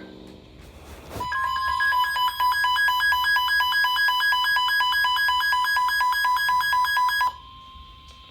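Electronic weather-alert beeping: a rapid, evenly pulsed tone of several beeps a second, lasting about six seconds and ending abruptly. A faint steady tone at the same pitch is left after it stops.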